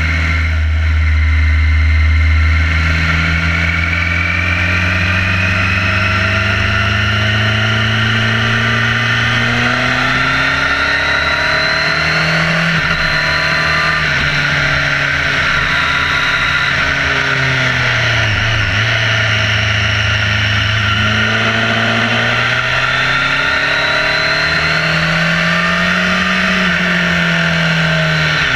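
Motorcycle engine under way, its pitch rising and falling again and again with the throttle, dipping lowest about two-thirds of the way through, over a steady rush of wind and road noise.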